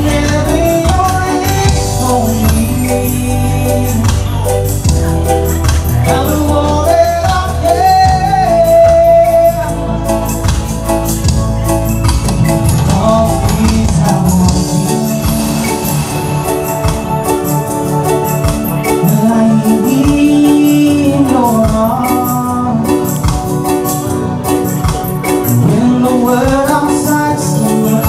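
Live reggae band playing, with a male lead vocalist singing over keyboards, organ, bass and drums. The heavy bass line is strong for the first third, then drops back.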